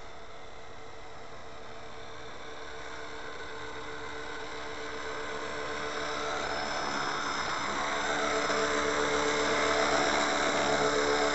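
Model RC helicopter (JetRanger scale body) flying, its rotor and motor giving a steady whirring whine that grows louder over several seconds as it comes closer.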